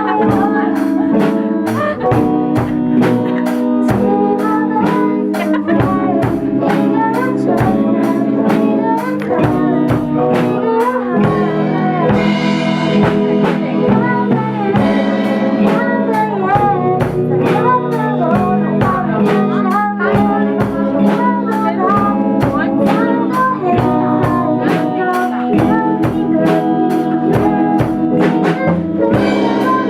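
A band playing a song with drum kit keeping a steady beat, guitar and a singing voice.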